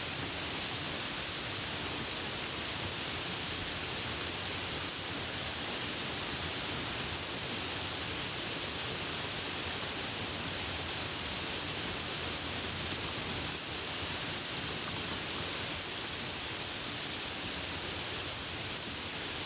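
Steady rain falling, an even hiss that does not rise or fall, with no thunder.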